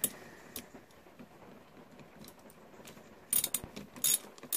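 Socket ratchet clicking as it winds down the centre bolt of a Honda lawnmower recoil starter. A couple of single clicks come first, then quick runs of clicks about three and four seconds in.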